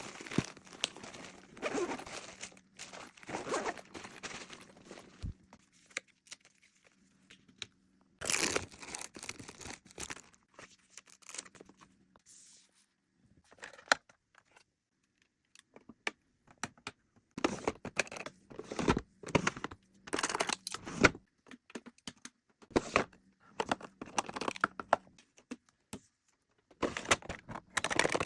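Packaging being handled while a journal order is packed: crinkling and tearing sounds in irregular bursts with short pauses between them.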